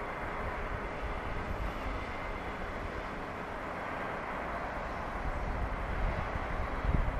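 Steady distant outdoor hum with faint steady tones, and irregular low wind buffeting on the microphone that grows stronger near the end.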